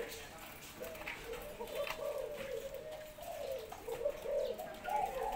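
Thai-line spotted doves cooing: a run of low coo phrases one after another, with short pauses between them.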